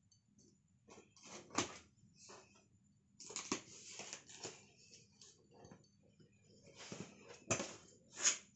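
Corrugated cardboard box handled and opened by hand: scattered scrapes, taps and rustles of cardboard as the lid is worked loose and lifted, with a few sharper knocks, the loudest about one and a half seconds in and near the end.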